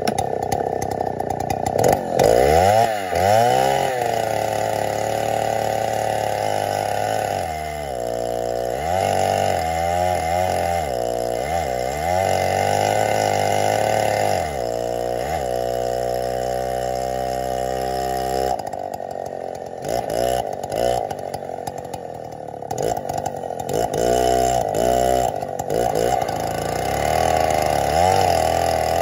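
Chainsaw in a Granberg Alaskan chainsaw mill ripping through an oak round. The engine pitch rises and dips repeatedly as the saw is pushed through the cut, holding steadier for a few seconds midway.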